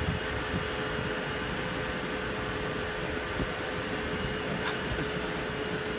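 Steady mechanical hum of the crane machinery lowering a racing yacht into the water, with a constant two-note drone running under it.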